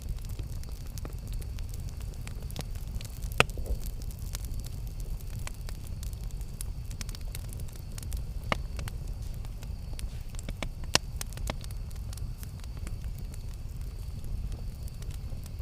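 Campfire burning, a steady low rumble of flames with scattered crackles and sharp pops from the wood; the loudest pops come about three and a half, eight and a half and eleven seconds in.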